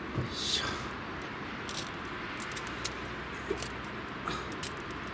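Small wood fire of shavings and split kindling catching, with a few sharp crackles and pops over a steady hiss.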